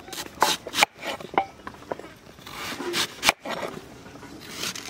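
Kitchen knife peeling the skin off a mango, a series of irregular short scraping strokes as the blade slices through the peel and flesh.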